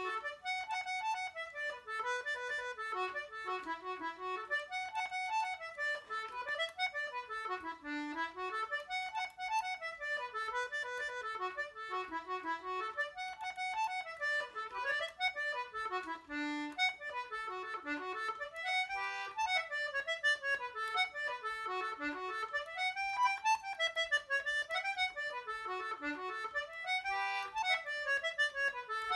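Solo accordion playing a lively jig, with quick runs of notes rising and falling in repeating phrases.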